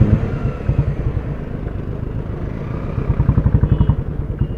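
Royal Enfield Bullet 350's single-cylinder engine running at low revs, its exhaust giving a steady, even thump of firing pulses. The beat eases off in the middle and comes back stronger near the end.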